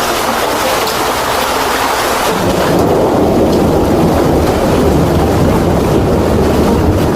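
Loud, steady noise of a violent rainstorm with heavy rain and wind, turning deeper and heavier about two and a half seconds in.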